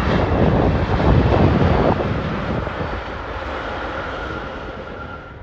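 Jet engines of an Air Canada Boeing 787 running as the airliner rolls along the runway, the sound fading steadily as it moves away, with wind buffeting the microphone.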